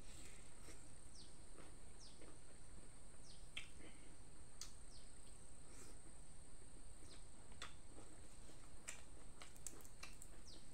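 Scattered wet chewing and lip-smacking clicks of a person eating spicy chicken by hand, over a steady high-pitched insect drone.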